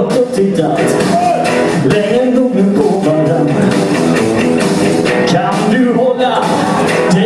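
Rock song played by a band: a man singing over electric guitar, with the steady hits of a drum kit.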